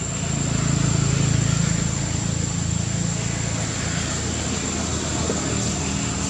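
A low, steady mechanical drone that swells about a second in and then eases off a little.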